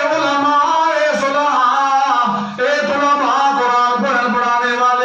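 A man's voice chanting verses in long, drawn-out, wavering notes, with a brief break about two and a half seconds in.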